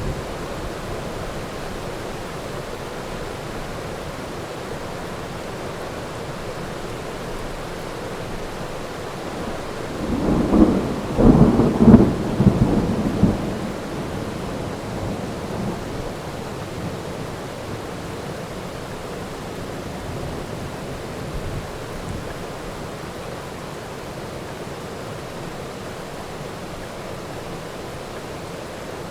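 Steady heavy rain with a rolling crack of thunder about ten seconds in, rumbling in several peaks for a few seconds before dying back into the rain.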